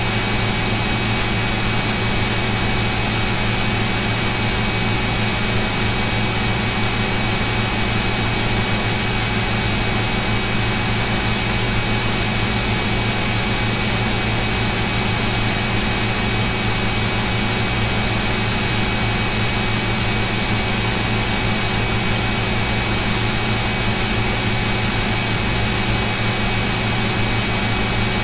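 Steady, unchanging hum and hiss picked up by a computer's microphone, with a few fixed hum tones and no other events.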